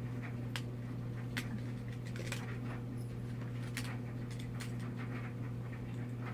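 Scattered small clicks and taps, typical of a screwdriver working tiny screws and plastic camera parts being handled, over a steady low electrical hum.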